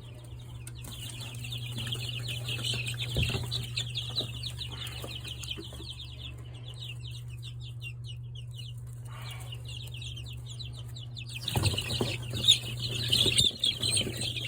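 A crowd of newly hatched chicks peeping, many quick downward-sliding peeps at once over a steady low hum. The peeping thins out in the middle and swells again about eleven seconds in, with some rustling knocks near the end.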